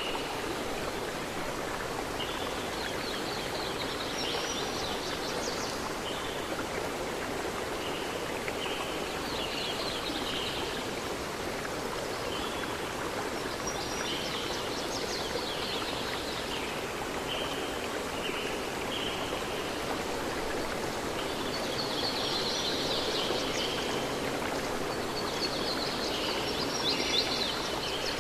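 Steady rush of running water, like a stream, with birds chirping on and off over it.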